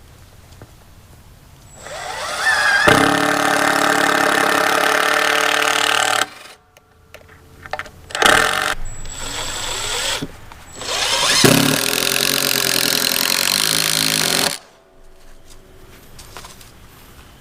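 Power drill driving screws into a wooden board: two runs of about four seconds each, the first spinning up in pitch as it starts, with a brief burst of the drill between them.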